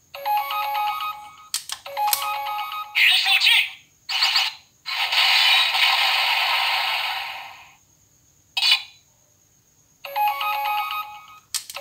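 Electronic sound effects from the Auldey DX Rescue Driver toy's small built-in speaker, played during its weapon-summon sequence. A stepped, ringtone-like beeping jingle is followed by short whooshing bursts and then one long hissing blast that fades out about eight seconds in. The beeping jingle starts again near the end.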